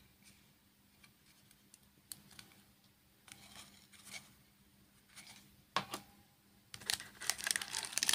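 Light clicks and taps of hands handling a plastic battery pack and a cardboard box tray, with one sharper knock, then a plastic bag crinkling loudly from about two-thirds in as the wrapped radio is taken hold of.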